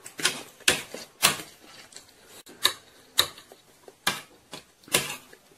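Noodle-eating noises: about seven short, sharp, irregularly spaced clicks and smacks from forks on a ceramic plate and a plastic bowl and from mouths slurping spicy instant noodles.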